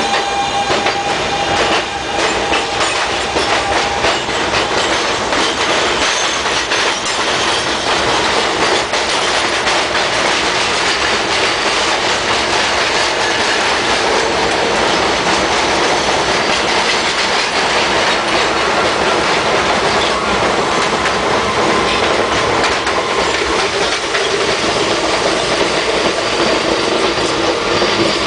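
R160B subway train running at speed, heard from between two cars: a loud, steady rush of steel wheels on rail with clickety-clack over the rail joints. Thin steady whining tones come in near the start and again from about halfway.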